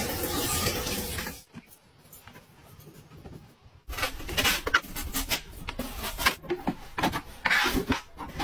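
Water spraying from a pull-down kitchen faucet onto hands, cutting off after about a second and a half. After a short pause, a knife slicing through watermelon on a plastic cutting board: a run of crisp cuts and taps.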